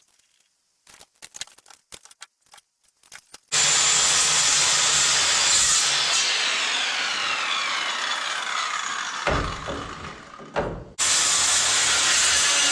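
Power saw cutting through wood, running steadily for several seconds, stopping briefly and starting again near the end, after a few light taps.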